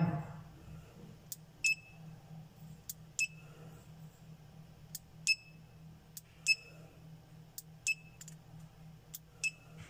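A series of sharp, short clicks, roughly a pair every second and a half, the louder click of each pair with a brief high ring, over a low steady hum.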